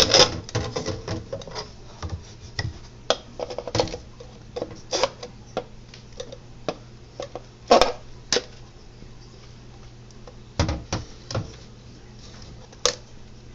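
Irregular scratching, clicks and occasional sharper knocks as an old Dell motherboard is scrubbed and handled in a kitchen sink, over a low steady hum.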